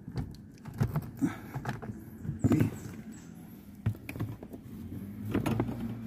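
Plastic clicks and knocks of a scan-tool cable's connector being pushed and worked into the OBD-II port under the dashboard: several irregular knocks, the loudest about two and a half seconds in. The connector is not seating properly. A low steady hum runs underneath.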